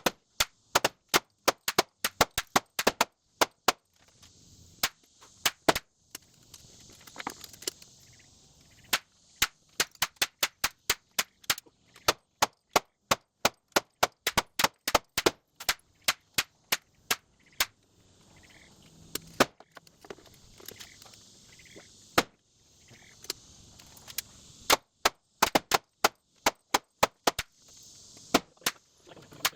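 Savage Arms 64 semi-automatic .22 LR rifle firing a long string of shots: quick runs of sharp cracks about two a second, broken now and then by pauses of a second or two.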